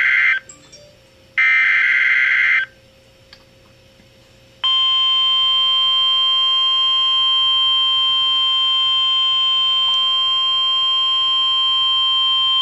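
Emergency Alert System broadcast opening: the end of one burst and then one full burst of the SAME data header, harsh screeching digital tones about a second long each. After a pause of about two seconds, the steady EAS attention tone starts about four and a half seconds in and holds without a break.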